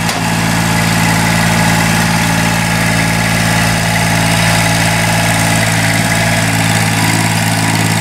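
The Kubota 905 three-cylinder diesel engine of an Allmand TLB225 backhoe loader running steadily at an even speed as the machine drives slowly across pavement.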